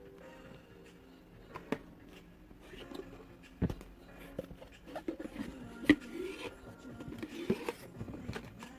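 Unboxing handling sounds: scattered taps, knocks and scrapes as a boxed tumbler set and its packaging are handled, with two louder knocks around the middle.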